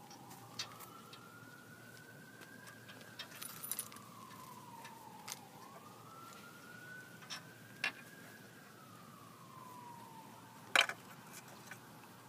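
Distant emergency-vehicle siren on a slow wail, rising and falling twice. Scattered sharp clicks and one louder knock near the end.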